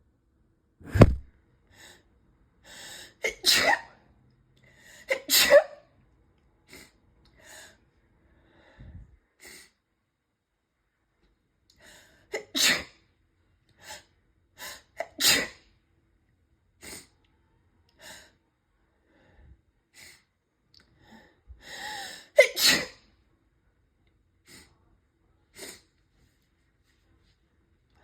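A person's sneezing fit: about six loud, sudden sneezes. Three come in quick succession in the first few seconds, two more follow about ten seconds later, and a last one comes about three-quarters of the way through. Short drawn-in breaths lead into some of them, and quiet breaths are heard between.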